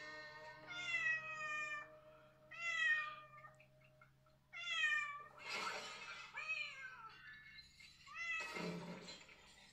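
A cat meowing on a television's soundtrack, about five separate drawn-out meows, over faint background music.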